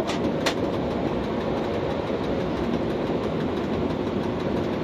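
Electric commuter train running along the line, heard from inside the driver's cab: a steady rumble of wheels on the rails, with two sharp clicks in the first half second.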